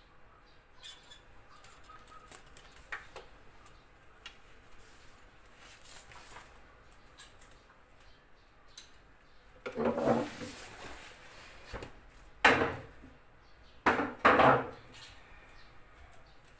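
Snake-catching grab tongs scraping and clattering against the tiled floor and wooden furniture in four short, loud bursts, starting about ten seconds in, with the last two close together.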